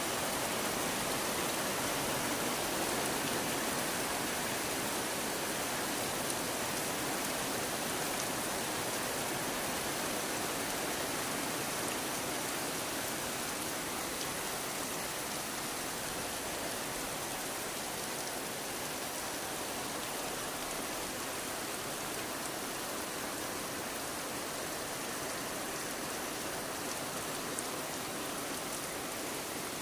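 Steady heavy rain falling, an even hiss of rainfall with no breaks.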